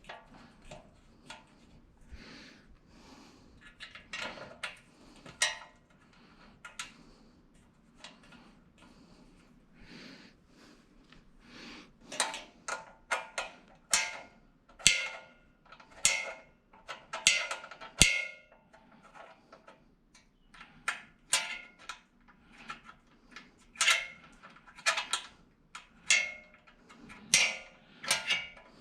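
Irregular metal clinks and knocks, some with a brief ring, from metal stand parts, brackets and hardware being handled and fitted together. They are sparse at first and come thick and fast from about halfway in.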